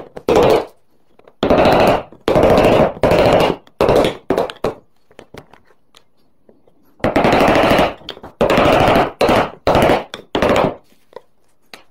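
A hand tool working wood in a run of rasping strokes, each about half a second long. Six strokes come in the first five seconds, then a pause of about two seconds, then five more.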